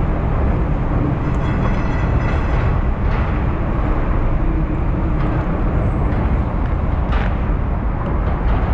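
Steady low rumble with a hiss above it aboard a small fishing boat, with no clear rhythm or tone.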